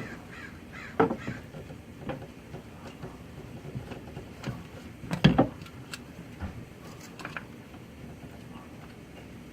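Hand work on the glow plug wiring harness connectors in the engine bay: irregular knocks and clicks, the loudest about a second in and about five seconds in, with a few faint squeaks.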